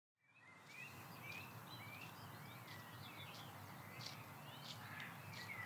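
Faint birdsong over a steady outdoor hiss: many short chirping bird calls, fading in about a second in.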